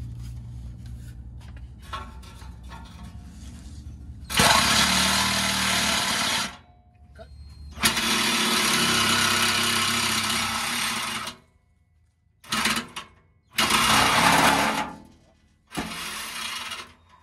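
Cordless reciprocating saw cutting through a steel exhaust pipe in five start-stop runs, beginning about four seconds in. The longest run lasts about three seconds in the middle, and the runs are separated by short pauses.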